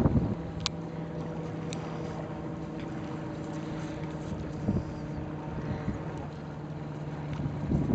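A steady low motor hum, holding one pitch, with a few faint clicks over it; it stops near the end as wind noise returns.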